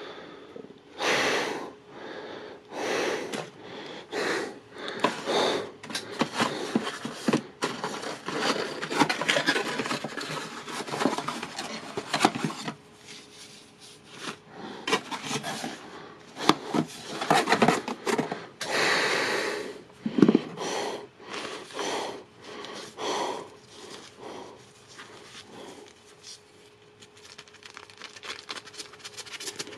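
Camera accessories and their packaging being handled and unwrapped by hand: a long run of irregular rustling and crinkling with small knocks, busiest in the first half. A faint steady hum runs underneath.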